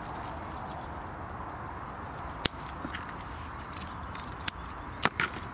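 Scissors snipping apple stalks: a few sharp, separate clicks, the last two close together near the end, over a steady faint outdoor hiss.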